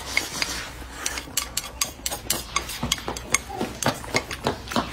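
Close-miked eating: wooden chopsticks scraping and clicking against the rim of a bowl as rice is shovelled into the mouth, followed by wet chewing. Many short, sharp clicks and crunches come irregularly, several a second.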